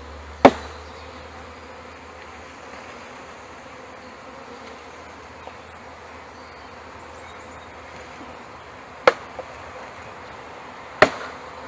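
Honeybees buzzing steadily around an open hive, broken by three sharp knocks (about half a second in, just after 9 seconds, and near the end): the wooden package box being knocked as the bees are shaken out.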